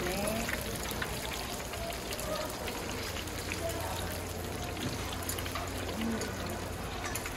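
Hot oil sizzling steadily in a deep fryer as battered pieces fry, with light clicks of metal tongs against the wire rack.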